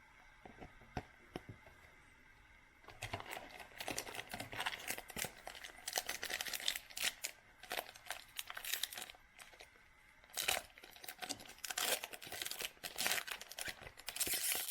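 A foil trading-card pack wrapper crinkling and tearing as the pack is opened by hand. After a few light clicks, the crackling starts about three seconds in and goes on densely from there.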